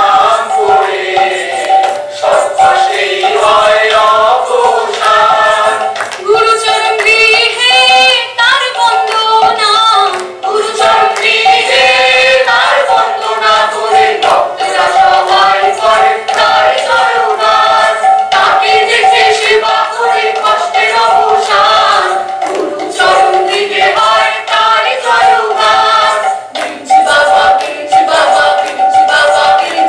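Several voices singing a devotional song together, the melody wavering over a steady held note, with hand clapping.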